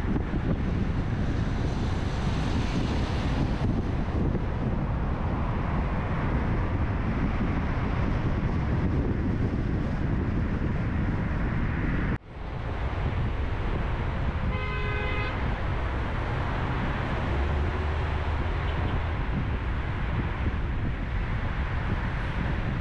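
Steady car and traffic road noise while driving through city streets, with some wind on the microphone. About two-thirds of the way through, a car horn gives a short toot. The sound drops out for an instant about halfway.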